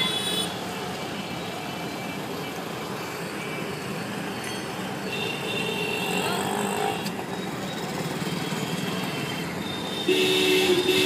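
Busy street traffic of motor scooters and auto-rickshaws running past. Near the end a vehicle horn beeps several times in short bursts.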